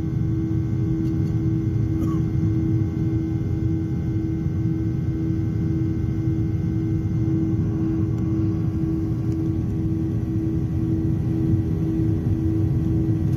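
Cabin noise of a Boeing 737 airliner climbing out after take-off: a steady low rumble of engine and airflow, with a prominent hum that throbs in a regular rhythm.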